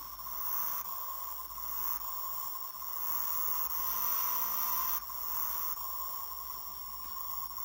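Simulated engine sound played by an Arduino Nano sound module through a small round speaker, changing level as the RC transmitter's throttle is worked: louder from about a second in, dropping back about five seconds in.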